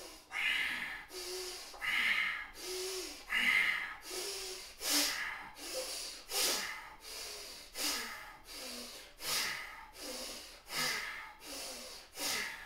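A man doing bhastrika (bellows breath): forceful, rhythmic in-and-out breaths, mostly through the nose. The first three breaths are slower and carry a low hum; after that they come evenly, one about every three-quarters of a second.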